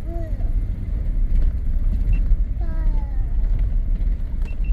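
Off-road vehicle driving up a rough dirt mountain trail: a steady low engine and road rumble, with two brief falling pitched sounds, one at the very start and one just past halfway.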